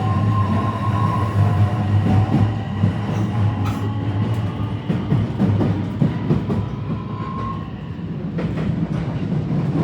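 JR West 321 series electric train, motor car MoHa 320-12 with a Toshiba IGBT VVVF inverter, running with a steady low rumble and rail-joint clicks. A steady whining tone sounds at the start and again around six to seven seconds in, from a car known for an abnormal high-pitched inverter sound.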